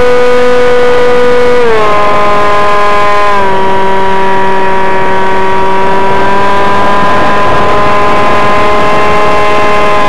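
Motor and propeller of a Slow Flyer 1400 RC model airplane, heard close up from the onboard camera as a loud, steady whine. The pitch drops twice in the first few seconds as the throttle eases, then creeps slowly back up.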